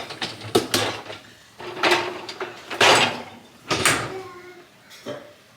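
A run of about five short rasping, ripping sounds, roughly one a second.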